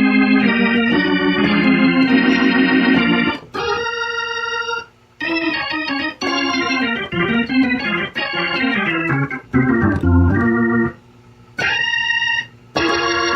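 Hammond organ played through a Leslie 147 rotary speaker cabinet: sustained chords, then a descending run and short stabbed chords with brief breaks. The Leslie is stuck on its fast tremolo speed and will not switch speeds, which the owner takes to mean the amplifier's speed-switching relay needs replacing.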